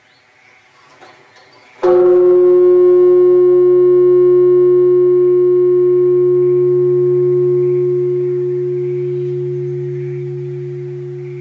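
Large Japanese temple bell (bonshō) struck once about two seconds in, then a long ringing hum with a wavering low tone, slowly fading.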